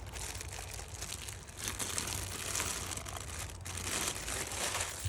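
Packaging crinkling and rustling as it is handled and pulled open to unwrap an impact wrench, irregular and stronger from about one and a half seconds in.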